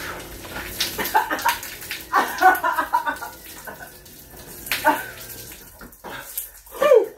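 Electric garage door opener humming as the sectional door rolls up, stopping about five and a half seconds in. Over it, beer splashes and spills from cans carried up on the door as two people try to drink from them, with short cries.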